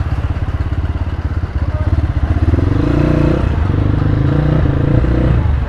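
Dirt bike engine running at low road speed, heard from the rider's position; its note rises about two and a half seconds in as the bike pulls away a little, holds, then eases off near the end.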